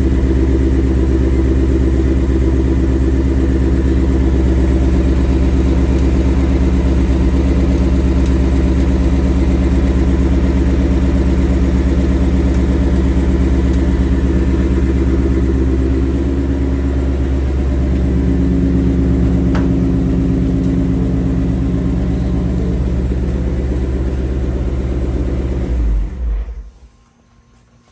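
2021 Ford Mustang GT's 5.0 L V8 idling steadily, slightly cool, with the light 'typewriter tick' ticking over it, which the owner takes for a harmless characteristic of the engine rather than a fault. The engine sound stops abruptly near the end.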